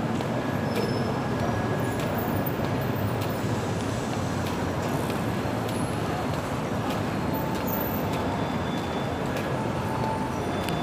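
Steady rumble and hum of a city bus heard from inside while it moves, engine and road noise running evenly.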